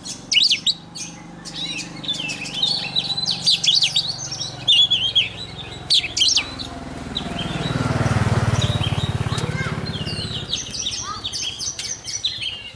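Caged Oriental magpie-robin singing a rapid run of varied whistles and chirps. About six seconds in, the song mostly stops while a low rumbling noise swells and fades over about four seconds, then the singing resumes near the end.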